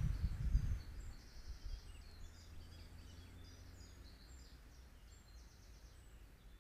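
Small songbirds calling with short, high chirps and a couple of quick trills, over a low rumble of wind buffeting the trail camera's microphone in the first second.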